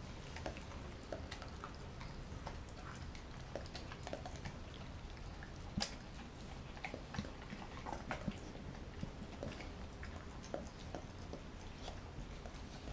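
German Shepherd mix dog eating raw shrimp off a wooden board: faint, scattered chewing and licking, with short wet clicks and smacks. A sharper click comes about six seconds in.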